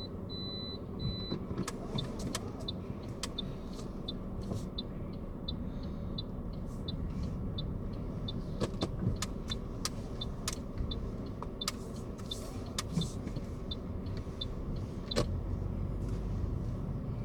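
Car running on the road, heard from inside the cabin, with steady engine and road rumble. A light, regular ticking of about three ticks a second, typical of a turn-signal indicator, runs through most of it, and there are a few sharp clicks or knocks.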